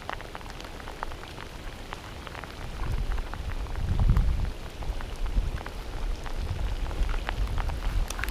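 Heavy rain falling, with many close, sharp drop ticks over a steady hiss. A low rumble comes and goes from about three seconds in and is loudest about four seconds in.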